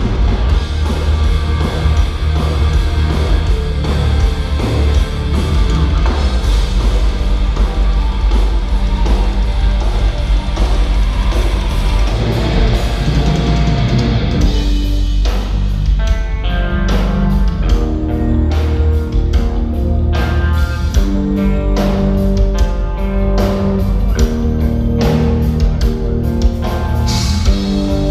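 Metal band playing live through a concert PA, distorted guitars and drums, loud. About halfway through the sound changes from a dense wash to clearer held guitar notes over separate drum hits.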